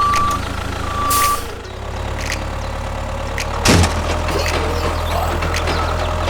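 A reversing alarm beeps twice in the first second and a half over a low, steady engine hum. A sudden clunk comes a little past halfway, then the hum runs on.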